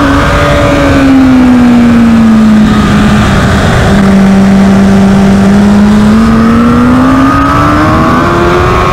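A 2021 Kawasaki ZX-10R's inline-four engine in second gear, with the throttle nearly closed through a corner. Its note falls over the first few seconds, holds at its lowest for a second or two, then climbs steadily under full throttle on the corner exit.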